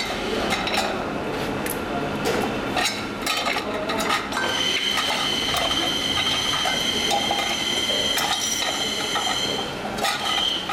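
Factory workshop noise: metal parts clinking and knocking against each other again and again, with a steady high-pitched machine whine that starts about four seconds in and stops shortly before the end.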